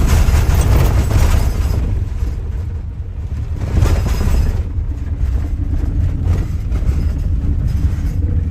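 Sprinter-based motorhome driving over a very rough gravel road: a heavy, constant rumble of tyres and suspension, with steady rattling and knocking from the body and loose contents being shaken about.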